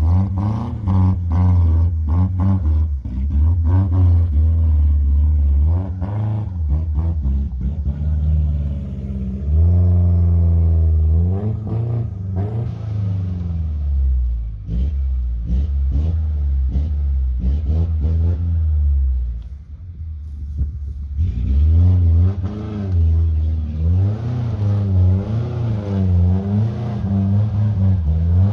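Four-by-four vehicle driving on a rough track, its engine revs rising and falling again and again, with knocks and rattles over bumps in the first few seconds.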